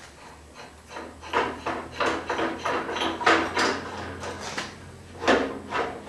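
Irregular knocks and rattles as a machined metal knob is fitted and turned on a band saw's door latch, the knob and door knocking against the saw's frame, with two louder knocks near the end.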